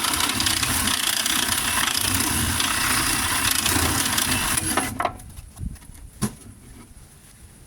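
Reciprocating saw with a demolition blade running hard as it cuts through the nails between pallet boards, stopping about two-thirds of the way through. A few short knocks follow.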